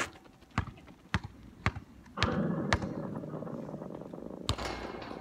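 Basketball bouncing, four bounces about half a second apart. A steady rushing noise takes over about two seconds in, with one more bounce near the end.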